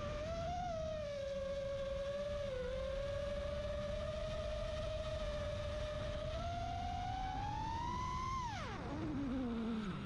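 FPV quadcopter motors whining, one steady pitch with overtones that shifts with the throttle. The pitch climbs slowly, falls sharply about eight and a half seconds in, then rises again.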